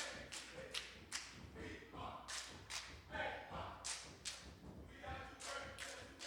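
Irregular sharp thumps and taps, about two to three a second, with faint voices between them.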